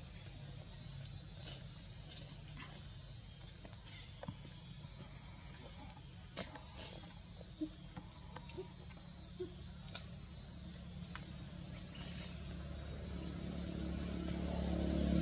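Steady chorus of insects, with a low engine hum that grows louder over the last few seconds as a vehicle approaches. Scattered faint clicks and a few short low blips are heard in the middle.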